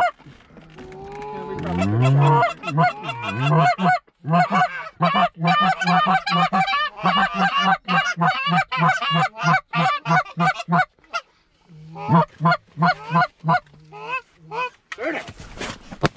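Loud, rapid goose honking and clucking, call after call at about three a second, with brief breaks about four seconds in and again near eleven seconds in; a single sharp crack comes at the very end.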